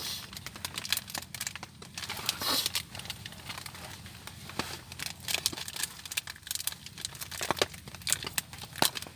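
A small plastic drink sachet being crinkled and torn open by hand, a busy run of short rustles and clicks.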